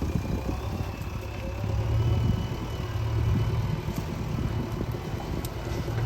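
JCB 3DX backhoe loader's diesel engine running steadily, swelling a little about two seconds in, with a faint thin high whine above it.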